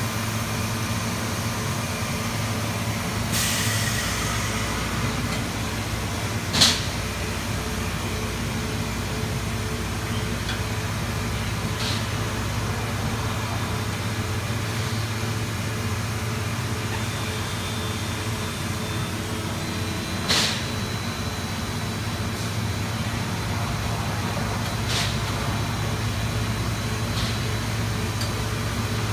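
Steady low hum of a powered-up Platino 1530 CO2 laser cutting system, broken by a few sharp clicks. The loudest clicks come about a quarter of the way in and about two-thirds in. A faint high whine joins about two-thirds of the way through.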